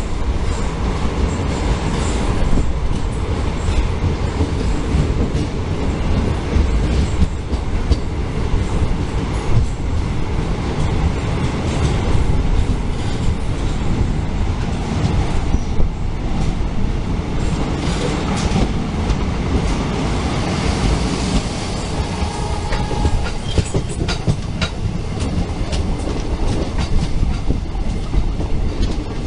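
Passenger train running at speed through a tunnel, heard from a coach: a loud, steady rumble with the clatter of wheels over the rails. The train comes out into the open near the end.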